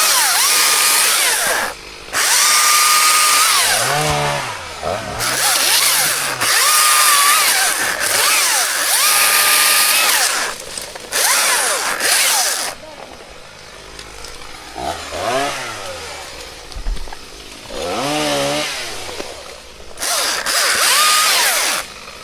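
Chainsaw at full throttle in repeated cuts of one to four seconds, dropping back to idle between them. Near the end there is a longer idle stretch with a few short revs, then one last cut.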